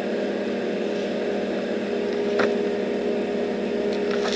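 A steady mechanical hum, a running machine holding one constant pitch, with a faint click about two and a half seconds in.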